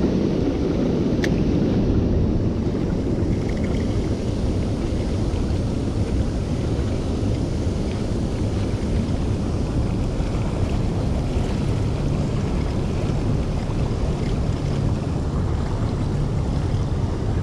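A 50-horsepower outboard motor running steadily, pushing the boat through choppy water, mixed with water rushing past the hull and wind buffeting the microphone.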